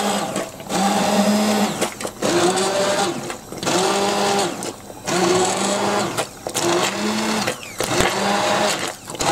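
Stick blender puréeing a pan of barbecue sauce with chunks of pineapple, orange, peppers and onion in it. It is run in repeated pulses of about a second or more, with short breaks between, and its motor whine rises at the start of each pulse.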